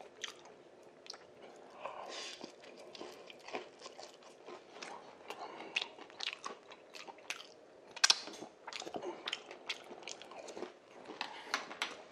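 Person chewing mouthfuls of spicy rice cakes (tteokbokki): wet mouth sounds with many short smacks and clicks. One sharper click comes about eight seconds in.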